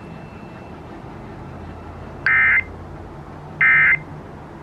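Emergency Alert System end-of-message data bursts: two short, loud digital screeches about a second apart, starting about two seconds in, over faint broadcast hiss and hum. They signal the end of the evacuation alert.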